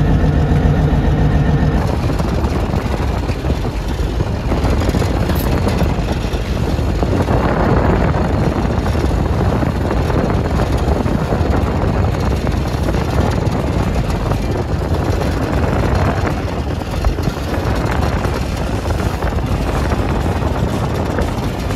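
Steady low rumble of a fishing boat's engine mixed with wind noise on the microphone; a steady pitched hum for about the first two seconds.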